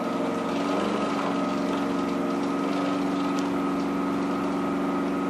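Bottom-load water cooler's pump running with a steady hum while priming the cold side, drawing water up from the bottle; it is a little noisier until the water reaches it.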